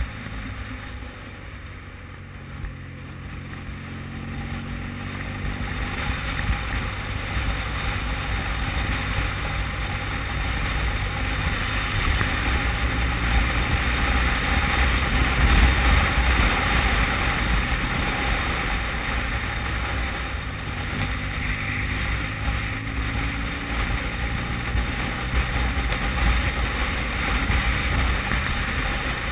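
Motorcycle riding at road speed, heard from a bike-mounted camera: wind rushing over the microphone with the engine running underneath. The engine note shifts in the first few seconds, then the rush grows louder as the bike speeds up, easing a little in the second half.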